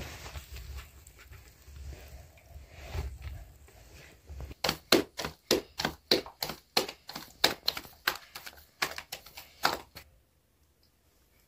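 Naan dough slapped rhythmically from palm to palm to stretch it thin, at about four slaps a second. The slapping starts about four and a half seconds in and stops suddenly near ten seconds. Before it there are softer handling sounds over a low rumble.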